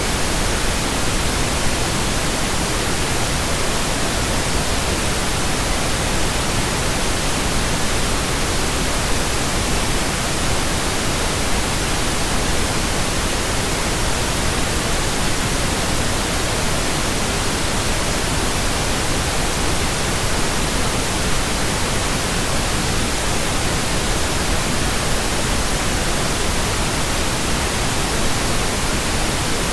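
Steady synthesized pink noise: an even, unchanging hiss spread across all pitches, with no tones, beats or breaks.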